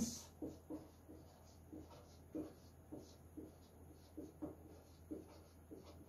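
Marker pen writing on a whiteboard: a run of faint, short, irregular strokes as the words are written out.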